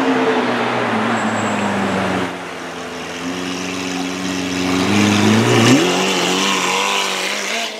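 Mansory Carbonado's V12 engine (Lamborghini Aventador-based) running at low revs as the car pulls slowly past. The engine pitch rises quickly with a short burst of throttle a little before six seconds in, then settles.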